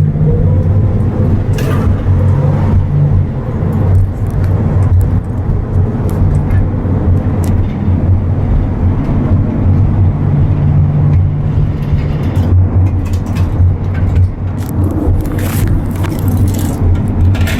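Steady low engine and road drone of a moving vehicle, heard from inside its enclosed, windowless cargo area, with occasional rattles and knocks of loose cargo, more of them near the end.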